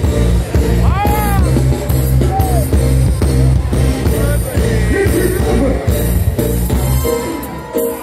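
Live reggae band playing loudly with a heavy bass line and a steady beat, heard from among the crowd at an open-air concert, with a man singing over it at times. About a second in there is a short rising-and-falling whoop.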